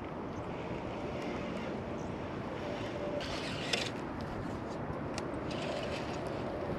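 Steady outdoor background noise, a rushing hiss typical of wind and distant traffic, with a few faint clicks about halfway through.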